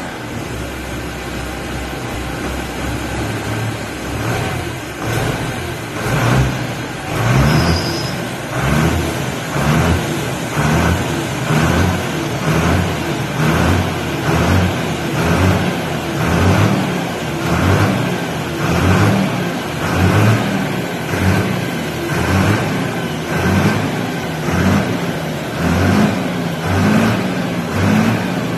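Fendt Farmer 312 LSA Turbomatik tractor's diesel engine running steadily for a few seconds, then revved over and over on the foot throttle in quick, even pulses, about one surge every second or so.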